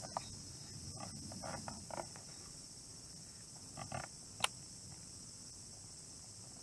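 Steady high-pitched chorus of evening insects, with a few brief chirps and one sharp click about four and a half seconds in.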